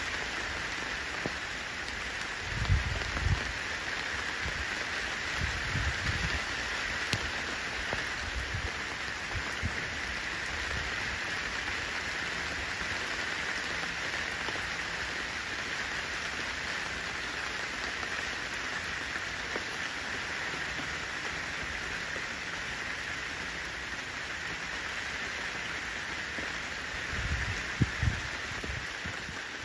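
Steady rain falling on wet pavement and puddles beside snowbanks, an even hiss. A few short low thumps stand out about three seconds in and again near the end.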